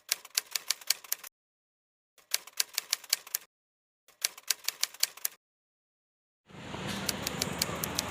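Typewriter-style typing sound effect: three bursts of rapid key clicks, about a second each, separated by dead silence. About six and a half seconds in, steady road traffic noise starts, with a few more clicks over it.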